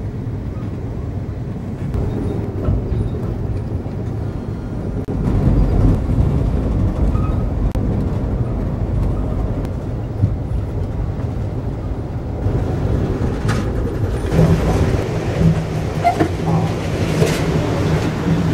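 Amtrak passenger train in motion, heard from inside the car: a steady low rumble of the train running on the rails. A few clicks and a steady hum join in for the last few seconds.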